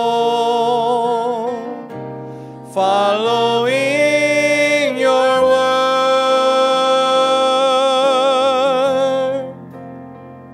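A man singing a slow worship song into a microphone over instrumental accompaniment. He holds long notes with vibrato, breaks off about two seconds in, and stops about nine and a half seconds in.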